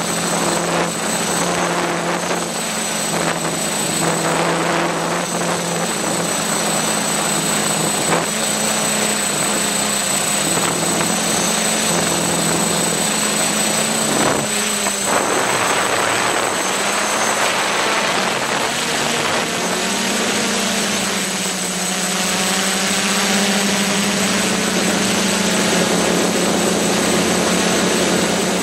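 A home-built drone's motors and propellers humming steadily, heard close up from its own onboard camera, with a rush of air over it. The pitch shifts slightly a couple of times as the motors change speed.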